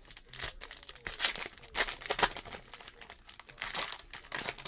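The foil wrapper of a football trading card pack crinkling in bursts as the pack is torn open and the cards are pulled out. The crinkling is loudest from about a second in and again near the end.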